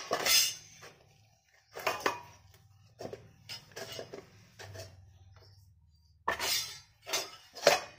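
Stainless steel plates clinking and clattering against each other as they are moved and rubbed with oil by hand: a few sharp metallic clanks, with softer scrapes and taps between them.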